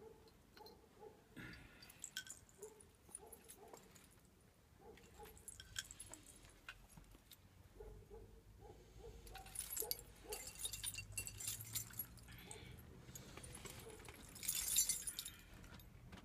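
Faint metallic jingling and clinking from the metal ornaments on a Mongolian shaman's costume as he shifts, with scattered light clicks and two louder spells of jingling, about ten seconds in and near the end.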